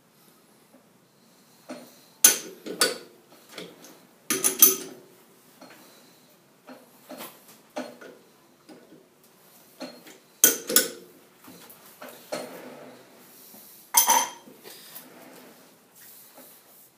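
Chuck key clinking and clanking in the jaw screws of a four-jaw lathe chuck as the jaws are adjusted on a steel bar, the chuck being turned by hand between. There are several groups of sharp metallic clanks with a short ring.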